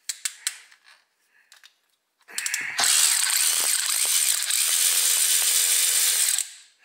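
A few light clicks, then a DeWalt brushless cordless power tool run with no load for about four seconds, a steady high whir that cuts off near the end.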